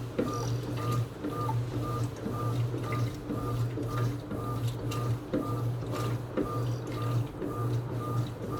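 Electrolux Essential Care 8.5 kg washing machine running a cycle: its motor hum comes in even pulses about once a second, with a short high whine repeating about twice a second.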